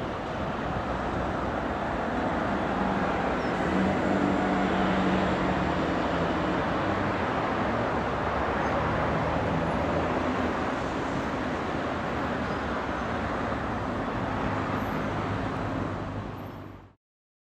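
Loaded freight train of hopper wagons hauled by a Class 66 diesel locomotive rolling away, a steady rumble of wheels with a low engine hum. The sound cuts off suddenly near the end.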